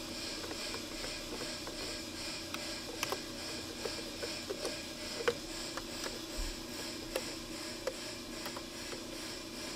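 A 5.5 mm nut driver turning small screws in a metal instrument-cluster housing: a scattering of faint, irregular clicks and ticks over a steady room hiss.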